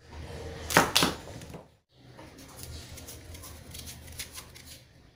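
A kitchen knife scraping seeds and stringy pulp out of squash wedges and cutting into the squash on a cutting board: two sharper knocks about a second in, then a run of quick, light scraping ticks.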